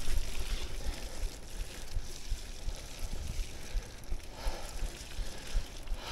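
Mountain bike rolling along a dirt trail: a steady hiss of tyres on the dirt, with frequent irregular low thumps as the bike jolts over bumps.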